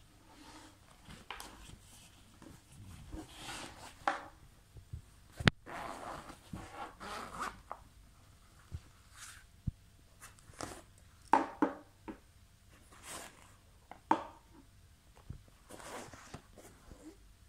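Zippers and nylon fabric of a tactical shoulder bag being handled: short zipping and scraping rustles at irregular intervals as pockets are opened, with one sharp knock about five and a half seconds in.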